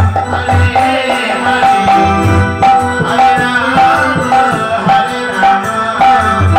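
Live Indian folk devotional music for dancing: a drum beating a steady repeating rhythm under a melody of short repeated notes, with percussion jingling.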